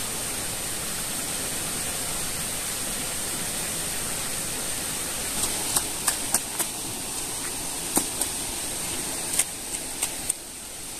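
Steady rush of shallow water flowing over a concrete weir. In the second half, a run of sharp slaps from flip-flop footsteps on the wet concrete.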